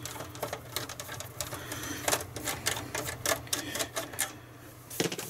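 Irregular plastic clicks and small knocks from an Amstrad DRX890 Sky receiver's case as its plastic panel and clips are handled and prised at by hand, over a steady low hum.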